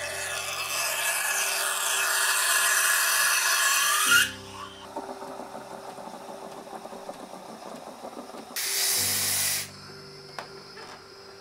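Espresso machine's steam wand hissing as it froths milk in a stainless pitcher, the hiss rising in pitch and cutting off about four seconds in, with the machine's pump humming. A second, short blast of steam hiss comes near nine seconds in.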